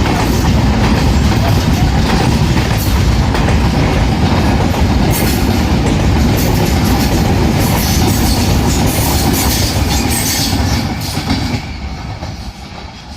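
Express train passing at speed close by, its wheels clattering rapidly over the rail joints. The noise drops away sharply near the end as the train goes by.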